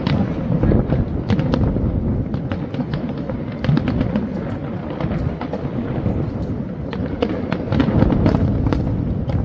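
Fireworks display going off continuously: deep booms and rumble overlaid with many sharp pops and crackles throughout.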